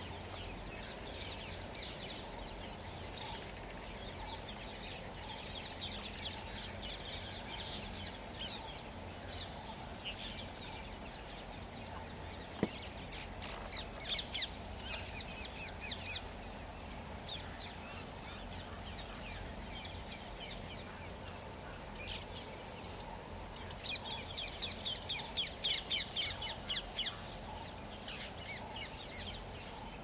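Small birds chirping in quick runs of short notes, in several bouts and busiest about two thirds of the way through, over a steady high-pitched insect drone. A single sharp click sounds near the middle.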